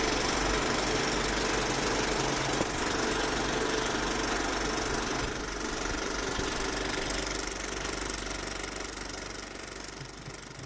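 Viper 3D printer running, its stepper motors whirring and buzzing steadily with a faint rattle, fading out near the end.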